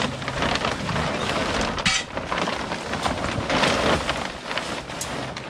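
Blue polyethylene tarp crinkling and rustling as it is dragged off a car, with a sharp snap about two seconds in.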